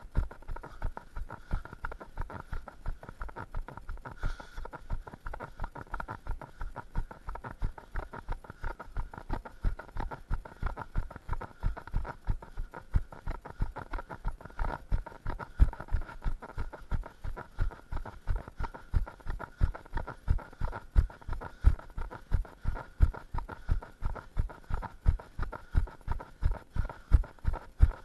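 A runner's footfalls on pavement in a steady running rhythm, nearly three thumps a second, picked up by a camera carried on the runner so each stride lands as a low jolt.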